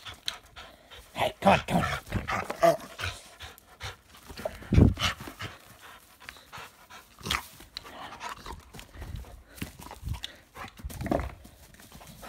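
A dog panting in short irregular bursts while tugging on a rubber ring toy, with a heavy thump about five seconds in.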